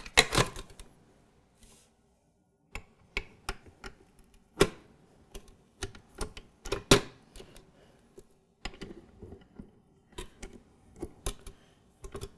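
Stand-mixer parts being fitted by hand: the clear plastic pouring shield and flat beater clicking and knocking against the stainless steel bowl and the attachment. The clicks are irregular, with two louder knocks about 4.5 and 7 seconds in and a run of quicker small clicks near the end. The shield is a tight fit.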